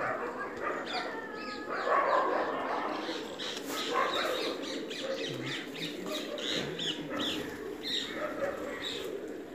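Birds chirping and calling, many short high chirps overlapping, with a squawk-like falling call about a second in.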